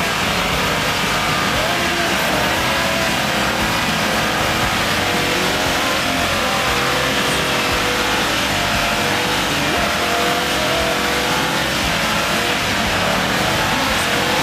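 Engine of a modified rock-crawling Jeep running under load as it climbs a rock ledge, its revs rising and falling.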